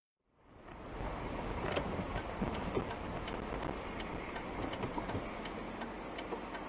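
Steady vehicle rumble picked up by a dashcam, starting about half a second in, with light irregular ticks and clicks over it.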